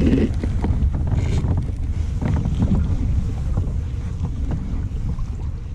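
Wind buffeting the microphone with an uneven low rumble, over choppy water lapping against a kayak hull.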